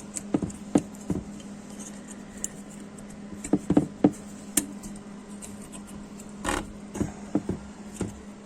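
Irregular light metallic clicks and clinks as spring-steel brake pad anti-rattle clips are handled and pressed into a Chevrolet Lanos caliper bracket, over a steady low hum.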